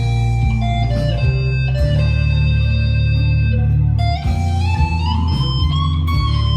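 Vintage V100 electric guitar played through an amp's overdrive channel: sustained single-note lead lines over heavy low notes, with one note bent upward about four seconds in and held.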